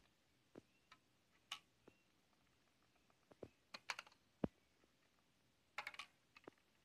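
Faint, scattered clicks and light taps of hands and a tool prying ribbon-cable connectors free on a MacBook Pro's logic board. Small clusters of clicks come a little past the middle and again near the end, with one duller tap just past the middle.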